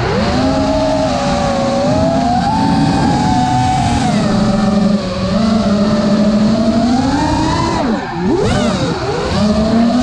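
Four iFlight CyberXing 1777KV brushless motors with PBnJ props on an FPV racing quad whining as the quad flies, heard from the GoPro mounted on it. The pitch rises and falls with the throttle. About eight seconds in it drops away sharply and then climbs back.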